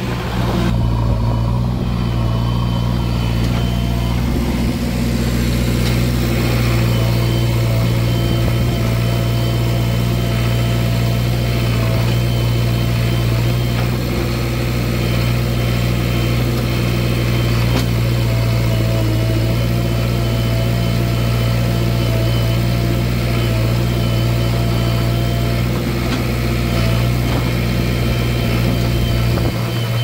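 JCB 3DX backhoe loader's 49 hp diesel engine running steadily, with a constant low engine tone.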